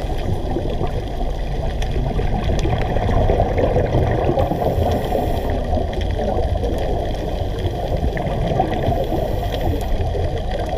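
Underwater sound picked up through a GoPro dive housing: a steady, muffled gurgling rush of water with no distinct events.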